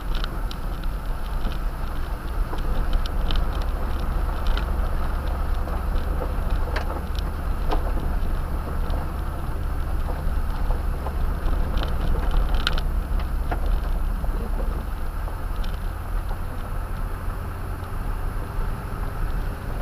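Toyota Tundra pickup driving on a rough dirt road, heard from inside the cab: a steady low rumble of engine and tyres, with scattered clicks and knocks, the loudest about 12.5 s in.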